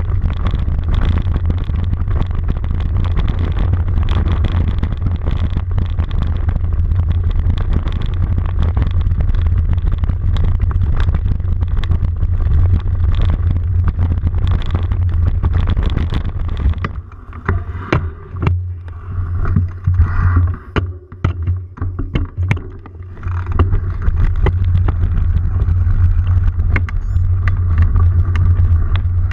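Steady low rumble of riding along a rough trail, picked up by a camera mounted on the rider or bike. About seventeen seconds in it eases off for several seconds, leaving scattered knocks and rattles, then picks back up.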